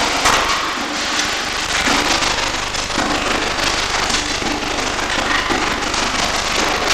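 Electric arc welding: the arc crackles and sputters steadily, with many small irregular pops.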